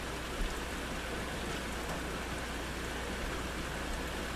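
Steady thunderstorm rain: an even hiss with a few faint, scattered drop ticks.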